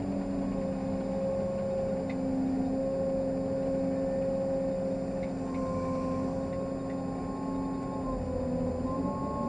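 Caterpillar 385C excavator's diesel engine and hydraulic pumps working under load, heard from inside the cab, as the bucket digs into dirt and curls up a full load. A steady drone with a few held tones that shift slightly in pitch, and a couple of faint ticks.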